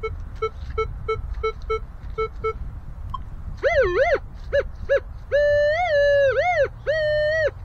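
Metal detector sounding off on a buried target: a run of short, evenly spaced beeps, then from about halfway through longer tones that rise and fall in pitch.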